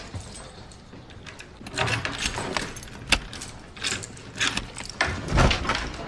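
Keys jangling and a door latch clicking as a door is unlocked and pushed open: scattered rattles and clicks, with one sharp click about three seconds in and a louder clatter after five seconds.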